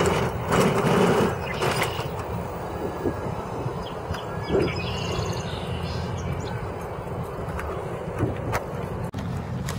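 Steady rushing noise from riding a Daymak Rickshaw King electric three-wheel mobility scooter on pavement: wind over the microphone mixed with tyre noise, louder for the first second or two.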